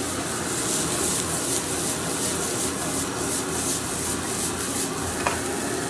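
Broccoli, garlic and bacon sizzling in a frying pan over a gas flame as the pan is shaken back and forth. For the first few seconds the sizzle pulses about four times a second with the shaking.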